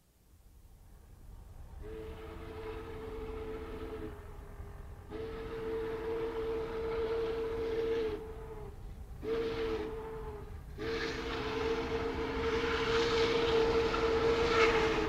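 Southern 2839 steam locomotive blowing its multi-note chime whistle in the grade-crossing pattern: long, long, short, long. Under it is the rumble of the approaching train, which grows steadily louder.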